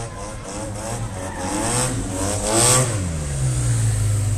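Car engine being revved, its pitch rising and falling in several swoops, then dropping to a steady low drone about three seconds in.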